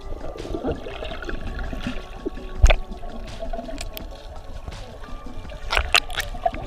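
Sea water sloshing and bubbling around an underwater camera, with a few sharp knocks: the loudest about two and a half seconds in, and a quick cluster near the end.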